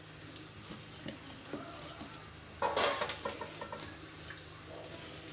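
Cotton cloth rustling as it is bunched around roasted litti balls to rub them clean, with a louder rustle about two and a half seconds in and a few light taps after it.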